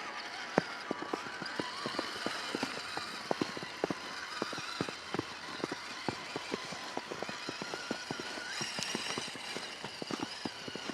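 Crisp, irregular crunching in snow, many sharp crunches a second, over a faint wavering whine.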